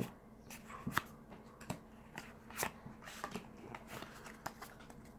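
Faint scattered clicks and soft rustles of a small stack of Magic: The Gathering trading cards being handled and squared up in the hands.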